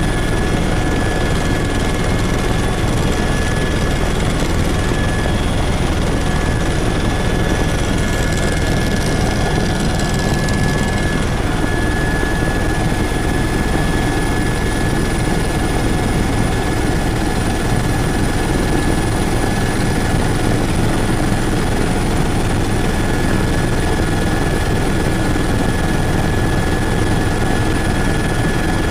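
Helicopter engine and rotor noise heard from inside the cabin in flight: a loud, steady drone with a thin steady whine running through it.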